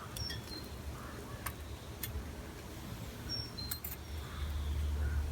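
Garden ambience: short high chirps from small birds and a few sharp clicks, over a low rumble that grows louder near the end.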